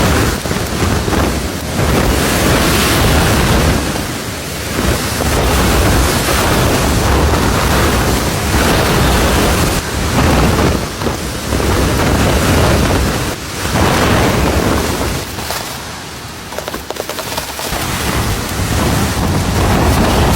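Snowstorm wind gusting hard and buffeting the microphone with a deep rumble, swelling and easing every few seconds.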